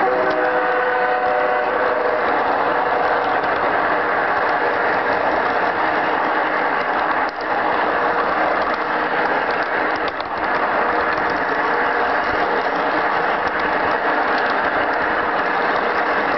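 Garden-railway model train running on its track, heard up close: a loud, steady mechanical rattle of wheels on rail and the gear drive. A thin tone in the first two seconds fades out, and the rattle briefly dips twice in the middle.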